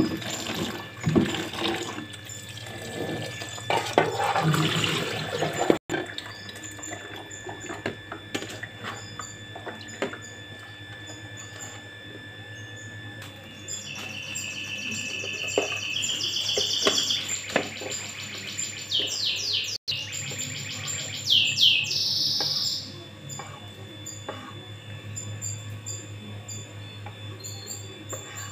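Tap water running onto mushrooms in a plastic bowl as they are rinsed by hand. It cuts off abruptly. Then comes plastic-bag crinkling, with birds chirping and trilling in repeated bursts in the background.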